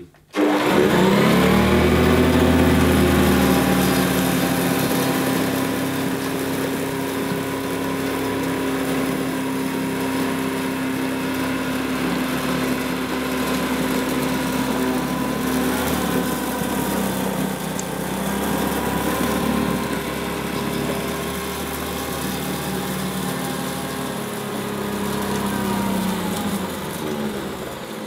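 Vintage Hoover 612 upright vacuum cleaner switched on, its motor spinning up quickly to a steady whine. It runs as it is pushed over a carpet strewn with grit and dirt. Near the end it is switched off and its pitch falls as the motor winds down.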